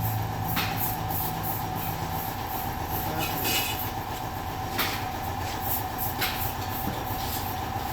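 Tire-changing machine and shop noise as a tire is worked onto a rim: a steady mechanical hum, a few sharp clicks or knocks, and a brief squeal about three and a half seconds in.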